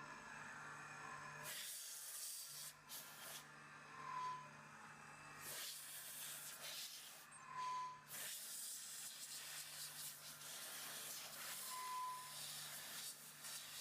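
Faint, steady machine hum with hiss, likely from the CNC mill and its VFD-driven spindle. A short high tone sounds about every four seconds, three times in all.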